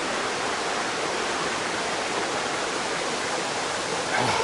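Small mountain brook running over rocks: a steady, even rush of water.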